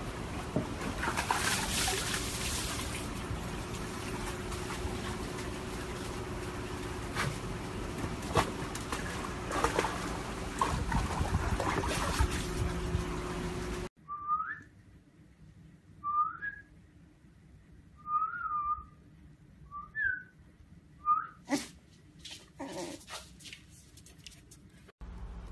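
Water splashing and spraying as a husky climbs out of a plastic tub of water and shakes itself off. After a sudden cut, a husky puppy gives about six short, high whines that rise in pitch, a second or two apart, followed by a few clicks.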